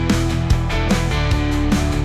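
Rock music with distorted guitar and a steady drum beat.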